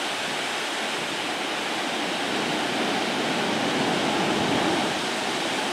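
Ocean surf washing onto the beach: a steady, even hiss of breaking whitewater.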